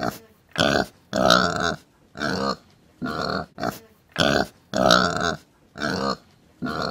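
Domestic pig grunting again and again, about a dozen short and drawn-out grunts with brief pauses between them.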